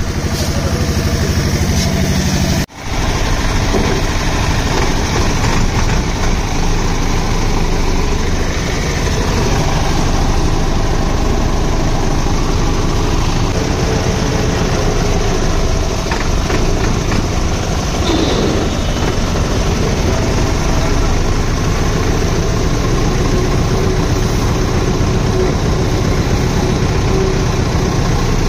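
Massey Ferguson tractor's diesel engine idling steadily, with a brief gap about three seconds in.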